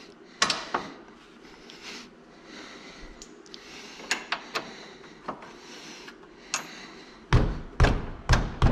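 Light clicks of bolt hardware being handled, then from about seven seconds in a run of heavier knocks, about two a second. The knocks are a long bolt being tapped through the Yamaha YXZ 1000R's rear frame and the new brace.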